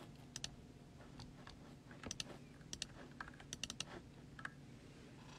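Faint typing on a computer keyboard: irregular key clicks, some in quick runs of several.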